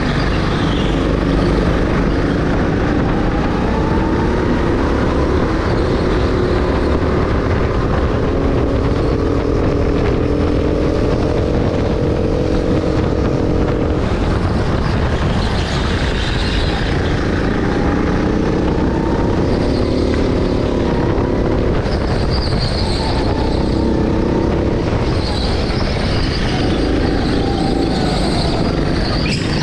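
Go-kart heard from the driver's seat. Its motor pitch climbs along each straight and drops back for the corners, three times over, above a steady low rumble.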